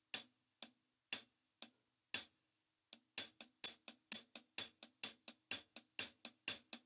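Hi-hat cymbals struck with a drumstick, mixing tip and neck strokes to make accents. Evenly spaced short strokes, about two a second at first, then after a short pause about four a second, with some strokes louder than the rest.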